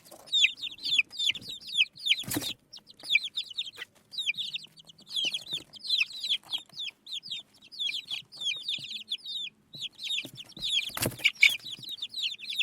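Baby chicken chicks peeping continuously: many short, high chirps that slide downward, coming in quick overlapping runs. Two brief knocks break in, about two seconds in and again near the end.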